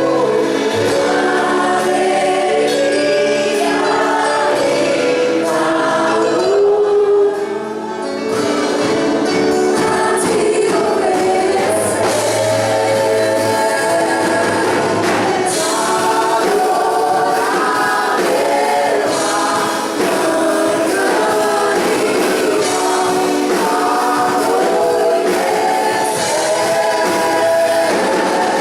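Church worship team singing a gospel worship song together, several voices over instrumental accompaniment.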